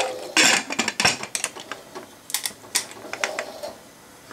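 Aluminium pressure cooker lid being fitted into the pot and closed, giving a run of sharp metal clicks and clanks over the first three seconds.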